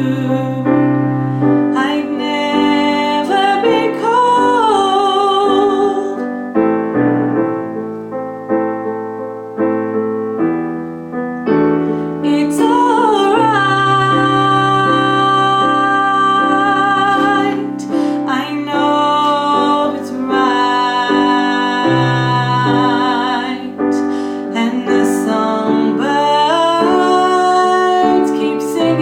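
A woman singing a choral alto line with piano accompaniment: held notes, some with vibrato, over sustained piano chords.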